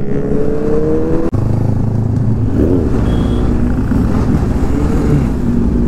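Group of sport motorcycles with aftermarket exhausts riding together. The near bike's engine climbs in pitch as it accelerates, breaks off suddenly about a second in, then settles into a steady engine drone with wind, while other bikes' exhausts rise and fall nearby.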